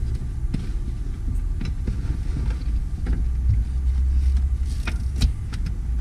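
Light clicks and knocks of a car battery's cable terminals and clamps being handled and fitted onto the battery posts, over a steady low rumble. The sharpest click comes about five seconds in.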